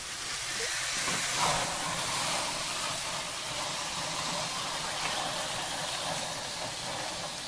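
Steady hiss and sizzle of a flattened whole chicken on a kamado grill grate as it is turned over with tongs, with flames flaring up under the meat.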